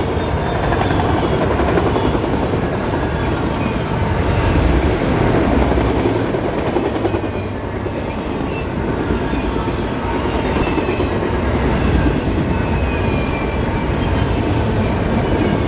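Autorack freight cars rolling past: a steady rumble and clatter of steel wheels on the rails, with faint high squealing from the wheels.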